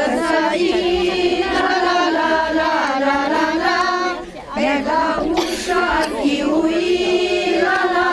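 A group of women singing a Maramureș folk song (horă) unaccompanied, in long held, slightly wavering notes, with a short breath break about four and a half seconds in.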